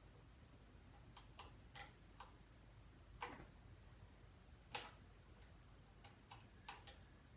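Faint, irregular small clicks and taps from handling small parts and tools at a workbench, about ten of them, the loudest a sharp tap about five seconds in.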